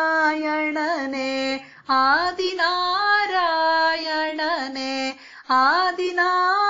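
A woman singing a Kannada devotional song, drawing out long vowels that bend and slide in pitch, in three phrases with two short breaks for breath; each new phrase starts with an upward slide.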